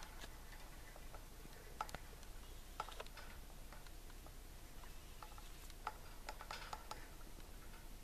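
Budgerigar preening: faint, scattered clicks and rustles of its beak working through its feathers, coming in a few short clusters, busiest past the middle.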